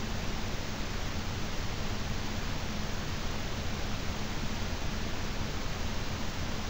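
Steady hiss of the recording's background noise with a low, even electrical hum underneath, unchanging throughout.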